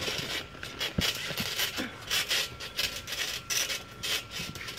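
Bodies shifting on a trampoline mat: rubbing and scuffing with a few soft knocks, one sharper thump about a second in.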